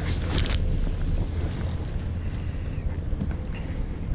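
Fishing boat's engine running low and steady, with wind buffeting the microphone and the sea washing around. A short crackle comes about half a second in.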